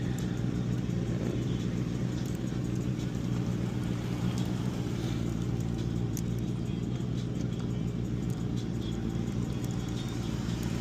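A steady low mechanical hum, even in pitch and level, with a few faint sharp clicks scattered over it.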